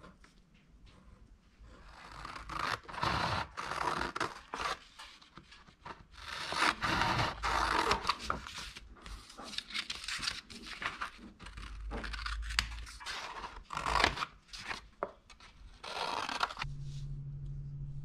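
Scissors cutting through thick painted paper in a series of crisp, noisy snips and paper rustles. Before that, faint scratching of a fine-tip pen on paper.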